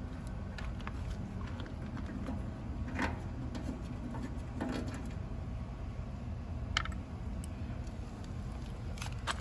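Hand tools being sorted and handled, giving a few scattered light clicks and clinks over a steady low background rumble.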